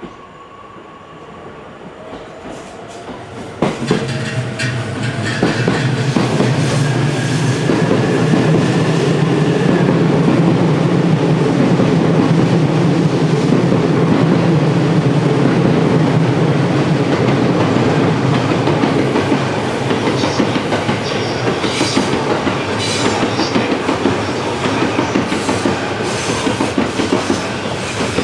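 JR East E259 series Narita Express electric train pulling away. Its inverter-driven motors give a whine that rises in pitch as it starts. From about four seconds in it is much louder, with steady wheel and motor noise as it runs past, then it fades into a string of clicks and clacks from the wheels crossing rail joints and points as it curves away.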